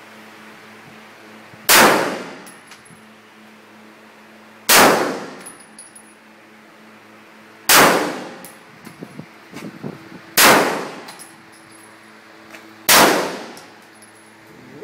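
Five 9mm pistol shots from a CZ 75 SP-01 Shadow, fired one at a time about every two and a half to three seconds, each followed by a short echoing decay.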